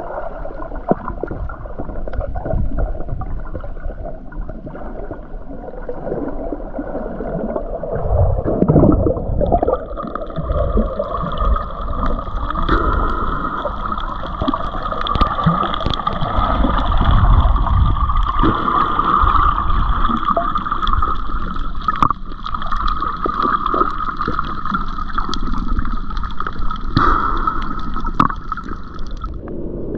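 Sea water heard through a camera held underwater while snorkeling: a muffled churning rumble with gurgles and small clicks. About nine seconds in a steady high whine joins it and runs on until it cuts off just before the end.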